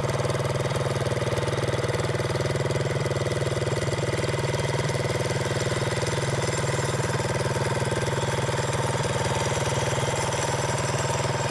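Small single-cylinder four-stroke engine of a mini motorcycle, 196–212cc class with a performance kit and a 1-inch exhaust silencer, idling steadily at an even speed.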